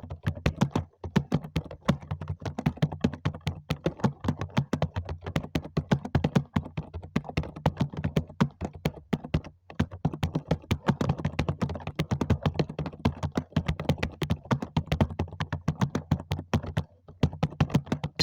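Computer keyboard being typed on steadily, about four keystrokes a second, at a typing-test pace of around 45 words a minute. There are brief breaks about a second in and about halfway through.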